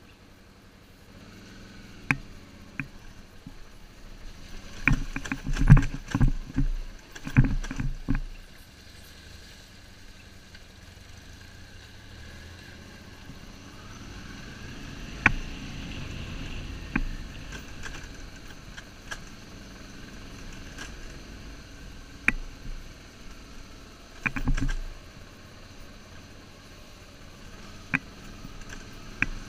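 BMW R1150GS Adventure motorcycle riding a rough dirt track, its boxer-twin engine and the ride's noise steady under a run of sharp knocks and clatters from bumps and stones about five to eight seconds in, with another near twenty-five seconds and a few single clicks.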